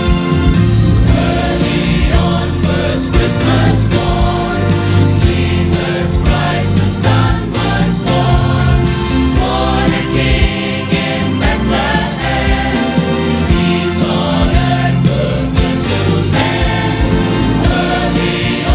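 A church choir singing a Christmas song with instrumental accompaniment: full voices over a steady bass and beat.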